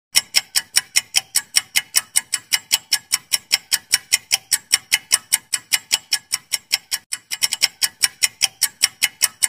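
Clock-ticking sound effect for a quiz countdown timer: sharp, even ticks about four a second, briefly coming quicker a little past three-quarters of the way through, marking the time left to answer.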